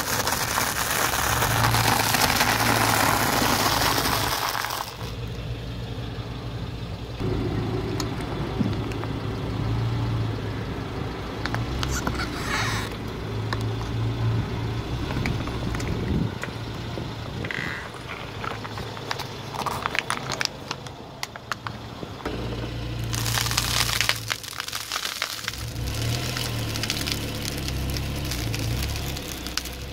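A car tyre rolling slowly over objects and crushing them, with the car's engine idling low throughout. Dry instant noodle blocks crunch and crackle loudly for the first four seconds or so, and quieter cracks and crackles follow as other objects are squashed.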